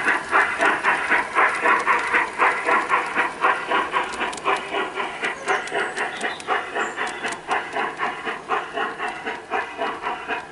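G-scale model steam locomotive chuffing in a steady rhythm of about three chuffs a second as its freight train runs along the garden railway, fading slightly near the end.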